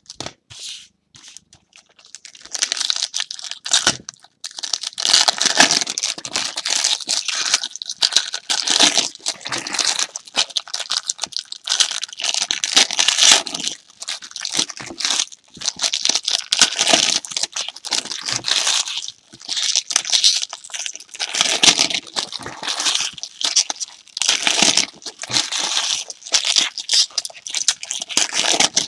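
Trading-card pack wrappers from a 2016 Stadium Club Premier box being torn open and crumpled by hand, a busy crinkling and tearing with short pauses, starting about two seconds in.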